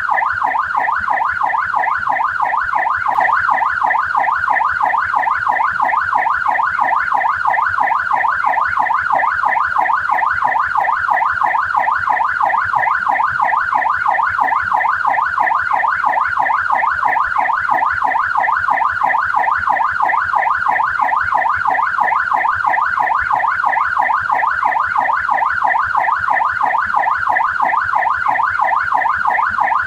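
Australian police car siren on the yelp setting: an electronic tone sweeping rapidly up and down several times a second, steady and unbroken.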